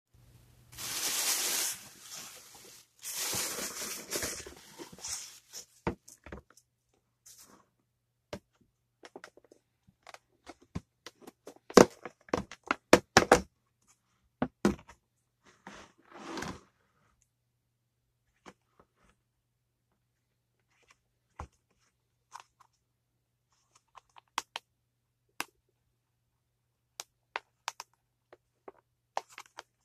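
Thin plastic carry-out bag rustling and crinkling as it is opened, in two bursts over the first five seconds. Then scattered clicks and knocks of plastic takeout containers being handled and set on a countertop, a loud run of them about twelve seconds in, fading to occasional faint clicks.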